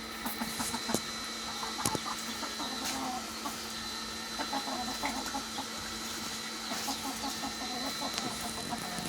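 Flock of desi chickens clucking, with many short calls scattered through.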